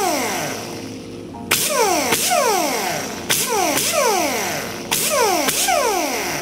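Pneumatic mini angle die grinder with a small abrasive disc run free in four short bursts. Each trigger press starts a sudden rush of air with a whine that sweeps down in pitch again and again.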